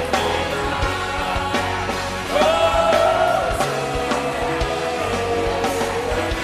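Worship band music with singing, drums and guitar; a voice holds a long note starting about two and a half seconds in.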